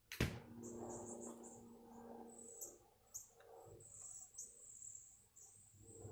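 One sharp click just after the start, then soft handling noise from a fabric sun hat being fitted together. Short, high chirps repeat every second or so in the background.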